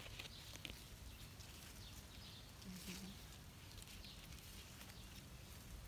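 Quiet outdoor ambience with faint, brief rustles of mulberry leaves and twigs as berries are picked by hand.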